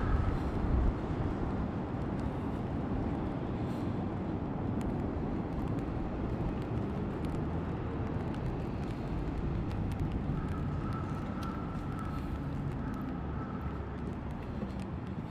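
Steady heavy rain falling on a wet street and pattering on a clear plastic umbrella overhead, with many fine drop ticks.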